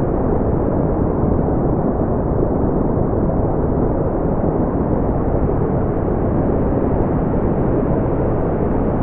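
Brown noise: a steady, deep rushing hiss with most of its weight in the low end and little treble, unchanging throughout.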